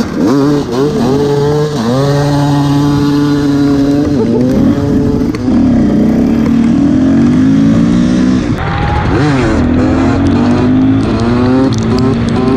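KTM enduro motorcycle engines revving hard under acceleration, the pitch climbing and then dropping sharply several times as the riders shift gears, over a steady hiss of wind and wet road.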